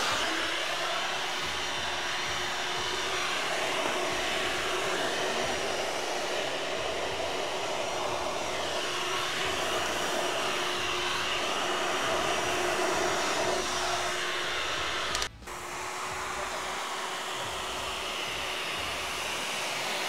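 Miele Triflex HX1 cordless vacuum running in handheld mode with a crevice nozzle, sucking up spilled grounds: a steady motor whine over rushing air. It cuts out briefly about fifteen seconds in, then runs on slightly quieter.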